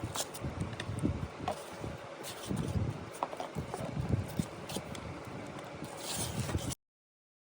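Handling noise: irregular rustling, soft thumps and small clicks, which cut off abruptly about a second before the end.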